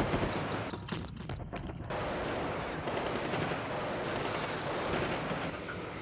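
Sustained automatic gunfire, shots running together into a continuous rattle.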